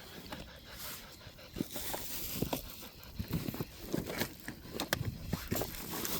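Someone rummaging through a bag of equipment: irregular rustling, small knocks and clicks as items are moved around.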